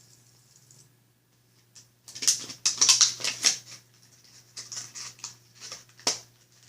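Packaging being handled: a quick run of loud rustling, scratching noises about two seconds in, then softer ones and a sharp click near the end.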